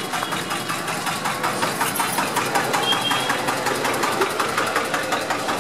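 Diesel tractor engine running close by, with a steady, even knocking beat.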